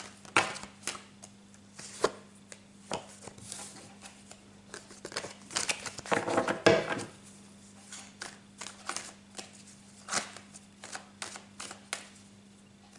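A deck of tarot cards being shuffled and handled: scattered soft slaps and clicks, with a longer, denser rustling shuffle about six seconds in, over a faint steady hum.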